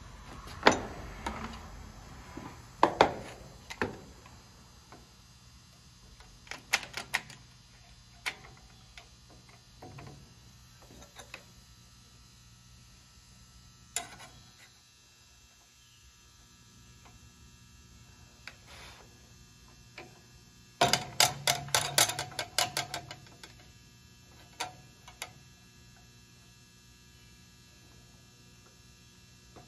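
Scattered metal clicks and knocks as a steel carpenter square is set and clamped against a sawmill head saw's shaft collar and frame. About two-thirds of the way through comes a quick run of clicks, like the trigger of a quick-grip bar clamp being pumped, all over a faint steady hum.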